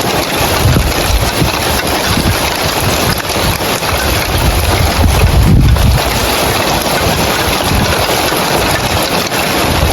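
Heavy rain falling on roof tiles, a loud, dense, steady hiss. Gusts of wind buffet the microphone with low rumbles, strongest about halfway through.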